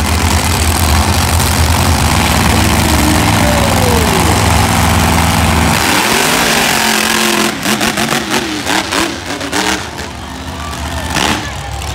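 Two monster trucks' engines running loudly at the start line, then revving hard as the trucks launch into a side-by-side race about six seconds in, with a rapid string of sharp cracks and pops.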